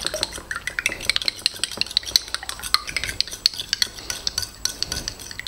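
Metal spoon beating raw eggs in a bowl: a rapid, irregular clatter of the spoon striking the bowl, stopping near the end.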